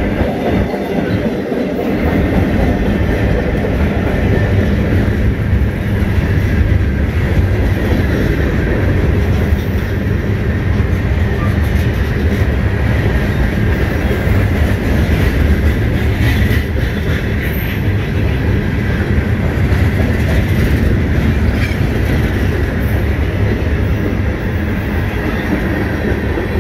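Canadian National freight train rolling past: a steady, loud rumble of the train's wheels on the rails, with scattered clicks.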